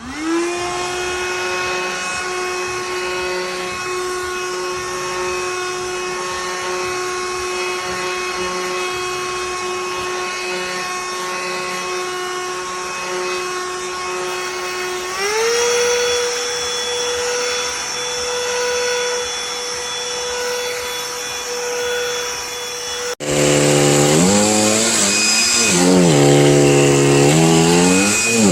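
Cordless handheld vacuum motor starting up and running with a steady whine. About halfway through it steps up to a higher pitch, as when switched to its higher speed setting. Near the end, after an abrupt break, its pitch wavers up and down.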